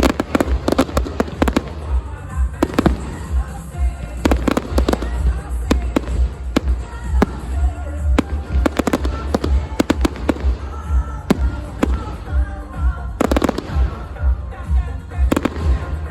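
Fireworks display: aerial shells bursting one after another, with clusters of rapid bangs and crackles. Music plays underneath.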